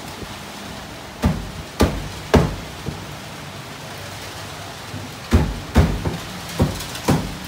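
Heavy rain falling steadily, broken by loud, sharp knocks: three in the first two and a half seconds, then a run of several about half a second apart near the end.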